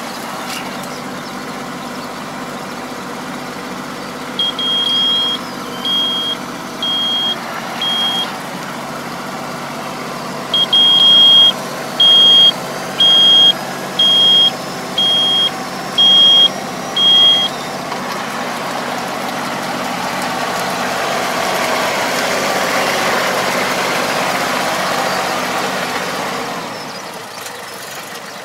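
Tractor engine running steadily while a high electronic warning beep sounds in two runs, four beeps and then eight about once a second, as the drive harrow folds up. The engine then rises in pitch and loudness before dropping back near the end.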